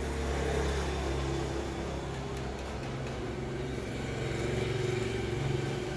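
An engine running steadily, a low hum with a few tones that waver slightly in pitch.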